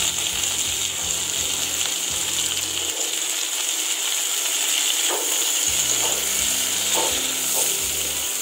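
Cut bell peppers and onion sizzling steadily in hot oil in a nonstick kadai, with a few light spatula strokes stirring them in the second half.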